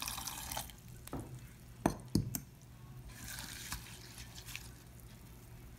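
Water poured into a ceramic bowl of flattened rice (poha), then a hand swishing and rubbing the flakes in the water to rinse them. A couple of sharp knocks come about two seconds in.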